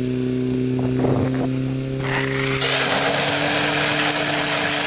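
Fire-pump engine running at steady high revs. About two seconds in, the loud hiss of water jets spraying from the hose nozzles joins it.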